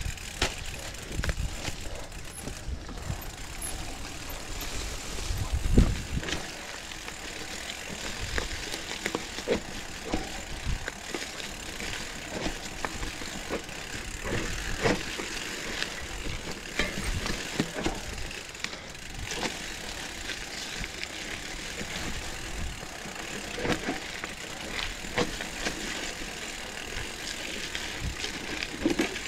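Mountain bike rolling down a rough dirt singletrack covered in dry leaf litter: tyre noise with many quick clicks and knocks as the bike rattles over roots and rocks, and one heavy thump about six seconds in.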